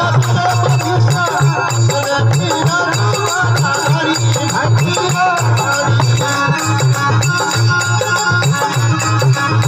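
Rajasthani folk devotional song music: a steady, pulsing drum beat with a rattle, under a wavering melody line that gives way to steadier held notes in the second half.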